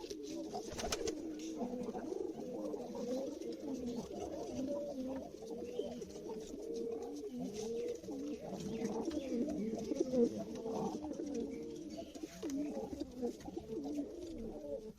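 Domestic pigeons cooing continuously, several birds overlapping, with a couple of faint clicks.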